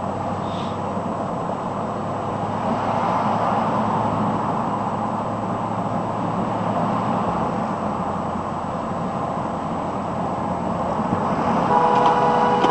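Steady road and engine noise heard from inside a moving vehicle's cabin in traffic. About a second before the end, a vehicle horn starts sounding, one held two-tone blast.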